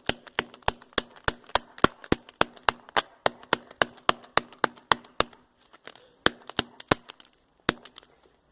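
A rapid, even run of sharp knocks, about four a second, as the phone is struck over and over. After about five seconds they slow to a few widely spaced knocks.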